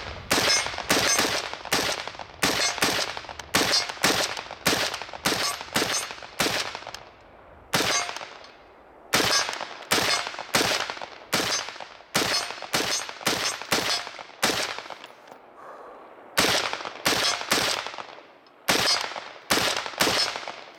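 Palmetto State Armory 20-inch A2-style AR-15 rifle firing .223 Remington rounds in quick semi-automatic strings, about two shots a second. There are short pauses about 7 and 15 seconds in. Each shot is sharp and trails off briefly in echo.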